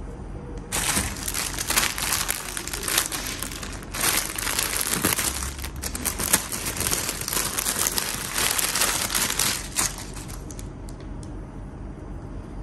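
Thin clear plastic packaging bag crinkling as it is handled and opened to pull out a soft knitted item. It starts about a second in, dips briefly, and stops near the end.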